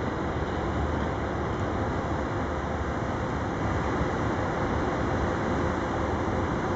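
Steady low rumble of a Railion class 6400 diesel-electric shunting locomotive running, under a constant rushing noise.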